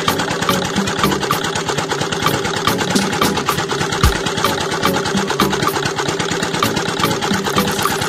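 Small motor of a miniature model sugarcane juicer running steadily, driving its rollers by a belt as they crush stalks, with a regular clicking of about four a second.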